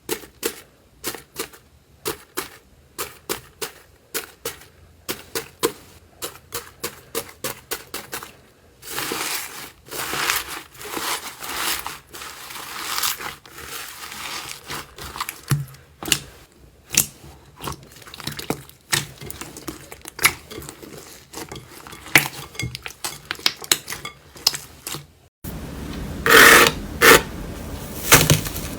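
Slime being squeezed, pressed and stretched by hand: a quick run of sharp clicks and pops, then stretches of crackling and crunching, with a sudden change to a louder clip near the end.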